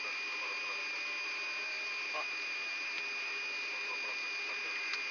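Cockpit voice recorder audio from a Yak-42D during engine start: a steady hiss with a constant high whine, under faint, muffled crew voices.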